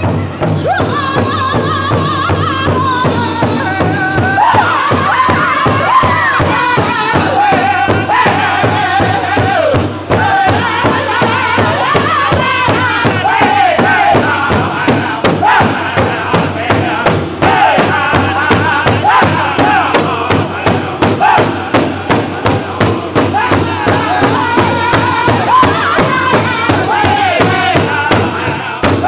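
Powwow drum group playing an intertribal song: several drummers beating one large shared drum in a steady pulse, with a group of singers over it in high, falling vocal lines.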